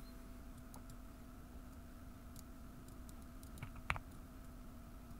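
Quiet room tone with a steady low hum and a few faint computer keyboard clicks, the loudest a couple close together near four seconds in.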